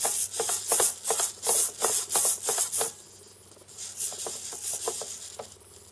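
HobbyKing micro linear servo with a 4x12 mm motor, driven back and forth: a rapid buzzing whir about three strokes a second. It pauses about three seconds in, then resumes more softly.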